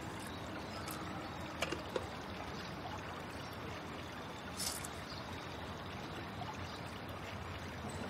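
Steady outdoor background noise, an even rushing hiss, with two light clicks about two seconds in and a brief soft hiss a little later.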